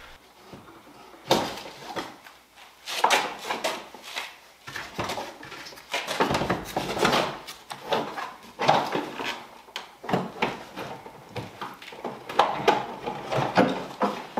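Irregular clicks, knocks and scrapes of a hard plastic heater housing being worked loose and handled, with a sharp knock about a second in.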